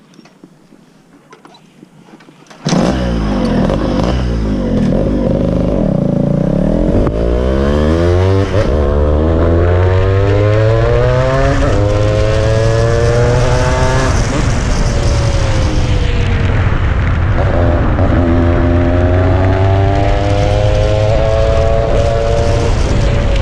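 Yamaha RX 135 two-stroke single-cylinder motorcycle engine, fully ported, with a racing CDI and a power chamber expansion pipe. It starts suddenly about two and a half seconds in, then is revved up and down several times, its pitch climbing on each rev and dropping back.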